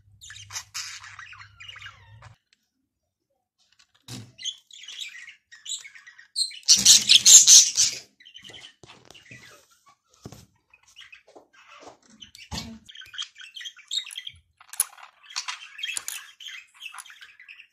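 Plastic Lego pieces being handled and pressed together, scattered clicks with high chirping sounds among them; the loudest part is a dense rattle lasting about a second and a half, about seven seconds in.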